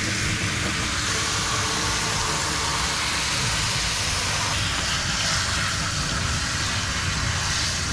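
Water jetting from a handheld shower sprayer onto a dog's wet, thick coat: a steady hiss of spray and splashing.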